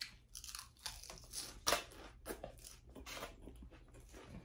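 Close-up chewing of a mouthful of crisp lettuce salad: an irregular run of crunches, the loudest a little under two seconds in.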